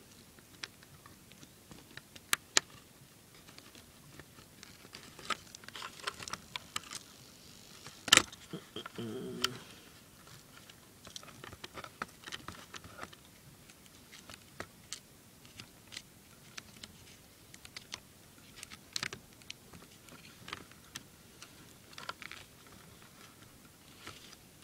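Scattered small clicks and rattles of hands working the micro RC crawler's light wiring and plastic plug connectors, with one sharp, louder click about eight seconds in.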